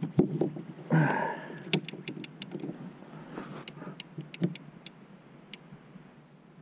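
Handling of a Shimano TR-100G levelwind reel and rod in a kayak rod holder: a thud about a second in, then a quick run of sharp clicks from the reel, followed by scattered clicks and small knocks.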